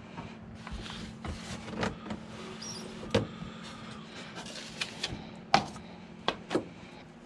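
Handling noise from a foam RC jet model being turned over on the workbench: scattered clicks, knocks and rubbing of foam and plastic parts, the sharpest knocks about three, five and a half and six and a half seconds in, over a faint steady hum.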